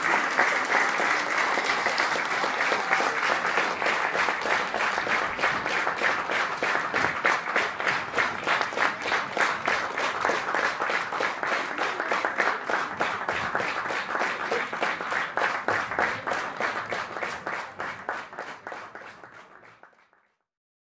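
Audience and choir applauding: a dense clatter of clapping that settles into steady rhythmic unison clapping, about three claps a second, and fades out near the end.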